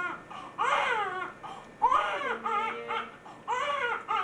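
Premature newborn baby crying: three wails in a row, each rising and falling in pitch.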